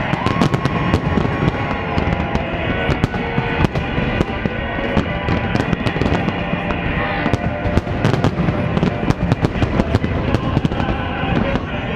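Aerial fireworks bursting in quick succession, many bangs and crackles close together, with music playing underneath.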